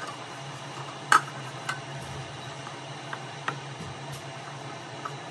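Scattered light clicks and taps of a pastry brush and a metal Bundt pan knocking as the pan is greased, with one sharper knock about a second in. A steady low hum runs underneath.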